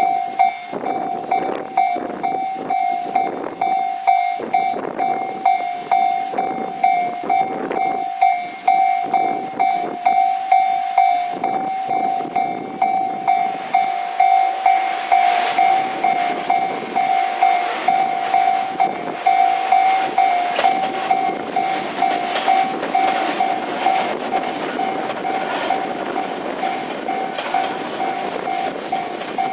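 Japanese level-crossing alarm ringing in a steady, regular repeating rhythm. From about halfway through, a Tobu 10050-series electric train running over the crossing grows louder, its wheels clattering over the rail joints.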